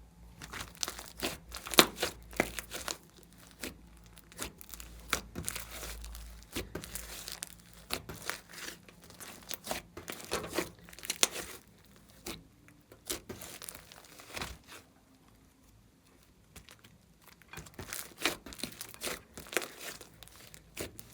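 Glossy slime being worked by hand, squished, stretched and folded, giving dense runs of sticky clicks, pops and crackles, with a short lull about two-thirds of the way through.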